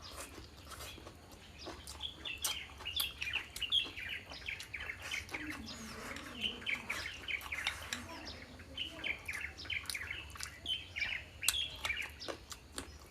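Small birds chirping in quick runs of short high notes, with scattered sharp clicks.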